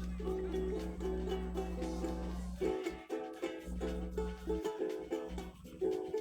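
A guitar strummed in a steady, repeating chord rhythm, with a low hum underneath that cuts out about three seconds in.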